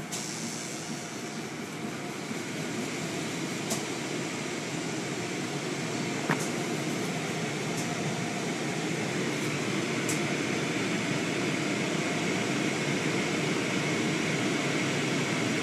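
Rotating cloth brushes of an automatic car wash scrubbing against the car's wet window, heard from inside the car: a steady rushing noise that slowly grows louder, with a few sharp clicks.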